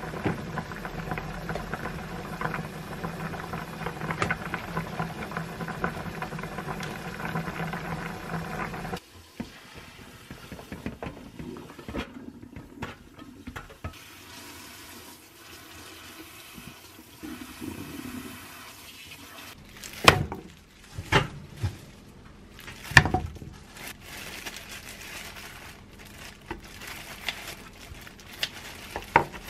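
Tap water running and splashing into a stainless-steel kitchen sink while boiled pork ribs are rinsed in a mesh sieve. The rush is steady for the first several seconds and then drops to a lighter trickle. A few sharp metal and cookware clacks come about two-thirds of the way through.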